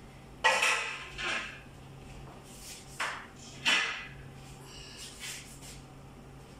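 Metal cooking pot knocking and clanking in an open oven, four sharp knocks with a short ring, over a low steady hum.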